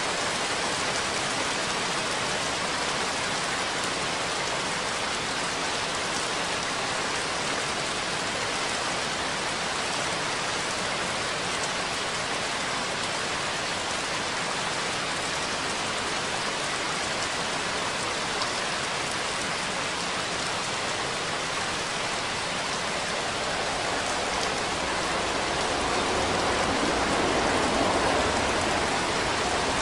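Steady rain falling, an even dense patter. A low rumble swells briefly near the end.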